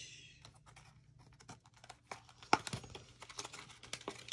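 Crinkle of a plastic blister pack at the start, then scattered small clicks and taps as the speed trigger and small gearbox parts are handled, with one sharper click about two and a half seconds in.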